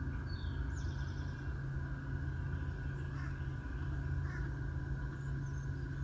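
A steady low churning rumble, the weird noise heard under a house, with a fainter steady hum above it. A few faint high chirps come about half a second to a second in.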